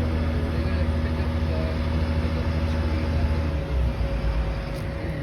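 Heavy equipment engine running steadily, its note dropping and changing about three and a half seconds in as the machine's load or speed changes.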